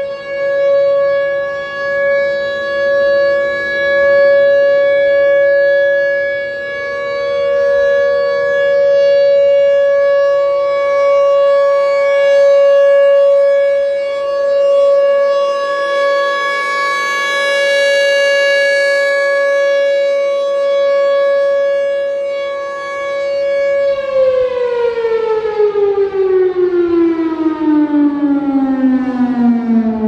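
Federal Enterprises Thunderbolt 1000 single-tone chopper siren sounding its steady alert tone, swelling and fading as the horn rotates. Near the end the signal cuts and the siren winds down, its pitch falling steadily.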